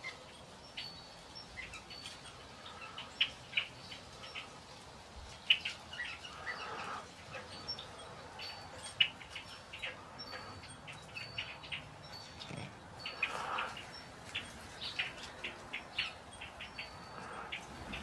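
A flock of red-winged blackbirds calling while feeding on the ground: many short chips and chatter notes overlapping irregularly, with a few softer, longer calls mixed in.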